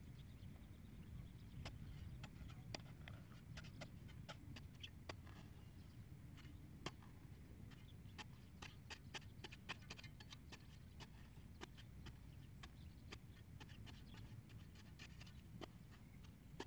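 Faint, irregular clicks and scrapes as a metal pipe is driven into a muddy lake bank to dig a hole, over a low steady rumble.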